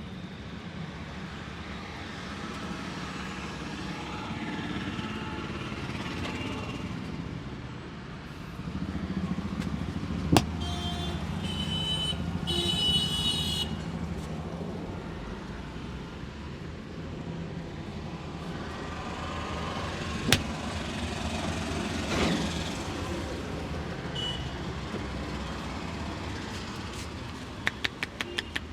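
Steady street traffic noise, with a vehicle horn tooting twice a little over ten seconds in. Two sharp slaps sound about ten seconds apart, and a quick run of even taps, about five a second, starts near the end.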